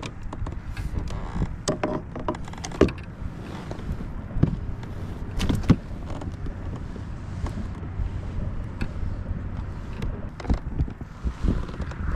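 Wind buffeting the microphone in a low, steady rumble, with scattered knocks and clatter of fishing gear and a landing net being handled in a kayak; a few of the knocks, about three and five seconds in, are louder.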